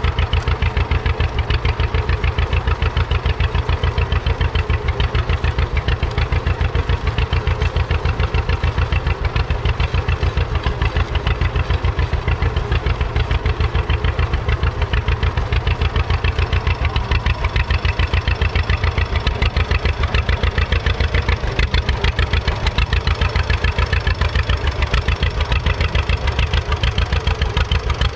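A 1940 John Deere BR's two-cylinder all-fuel engine running steadily under load while pulling a two-furrow trailed plough. It gives an even, rapid beat of exhaust pulses that does not change.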